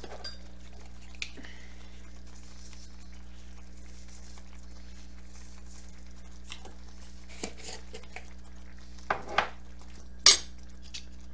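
Clinks and knocks of a spoon and seasoning jar at a cast-iron skillet while gravy is seasoned: a few short clicks in the second half, the loudest about ten seconds in, over a steady low hum.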